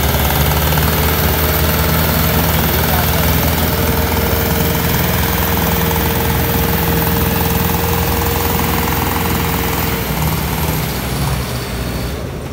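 Two diesel tractors, a Sonalika DI 60 and an Indo Farm, running flat out under full load, chained back to back in a tug-of-war, their engines labouring with a loud, steady, pulsing clatter. A steady high whine rides over the engines and stops about ten seconds in, after which the engine sound eases slightly.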